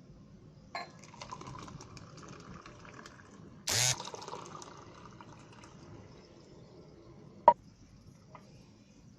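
Homemade lemon juice being poured into a glass: liquid running and splashing, with a short louder gush about four seconds in. A sharp clink of glass comes near the end.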